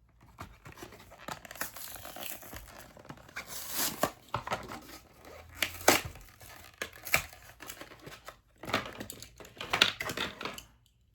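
Packaging of a diecast model car being opened by hand: plastic and cardboard crinkling and tearing, with several sharper crackles.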